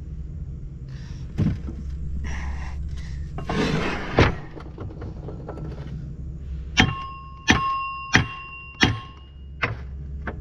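Hammer blows on a shaft in a Kemper 4500 corn head gearbox, trying to knock it out through the housing. A thud and a knock come first, then four ringing metal strikes about two-thirds of a second apart and two lighter taps near the end, over a steady low hum.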